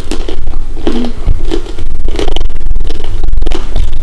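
A child chewing a hard, dehydrated female rhino beetle with his mouth closed, crunching loudly and repeatedly, about two or three crunches a second.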